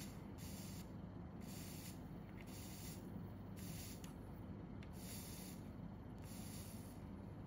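Soft, regular breathing close to the microphone: a short hiss about every second and a bit, over a low steady hum.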